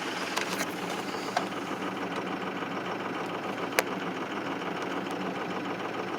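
2005 Ford 6.0 Powerstroke turbo-diesel V8 idling steadily while still cold after a 17°F start, running rough on two bad injectors, numbers 1 and 5 misfiring. A few short clicks sound over it, the sharpest about four seconds in.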